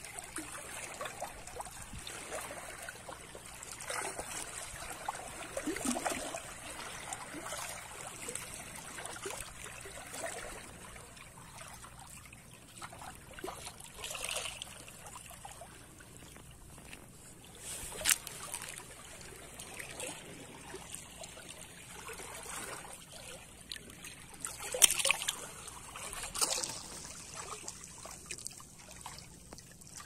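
Shallow seawater trickling and lapping among shore rocks, with a few sharp clicks, the loudest about 18 seconds in and again about 25 seconds in.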